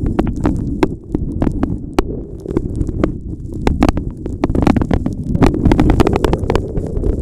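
Typhoon-force wind buffeting the microphone in a loud, gusting low rumble, with many sharp irregular clicks and taps scattered through it.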